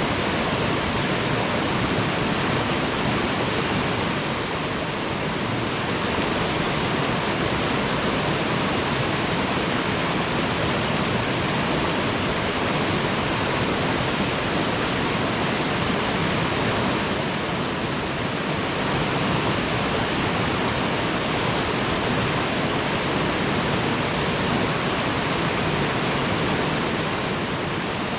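Waterfall pouring steadily, a continuous even rush of falling water.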